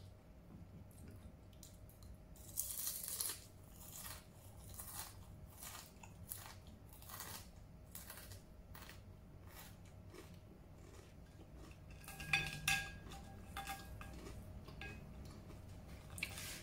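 Close-up chewing and crunching of dried okra pods: a run of small crisp crunches, with louder bites about three seconds in and again about twelve seconds in.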